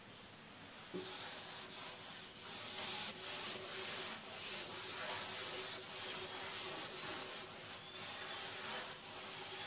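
Board duster rubbed back and forth across a chalkboard, erasing chalk writing in a run of uneven scrubbing strokes that start about a second in.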